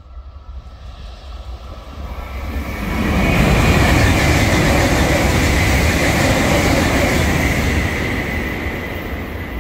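E4 series Max double-decker Shinkansen passing through the station at speed: a rush of air and wheel noise that swells about two to three seconds in, stays loud for several seconds, then fades as the train goes. A steady high whine runs through it.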